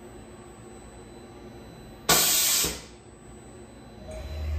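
Tormach 1100MX CNC mill's automatic tool changer during a tool change: a sharp blast of compressed air from the pneumatic drawbar hisses for about half a second, a little after two seconds in. Near the end a low motor hum builds as the tool carousel starts to move.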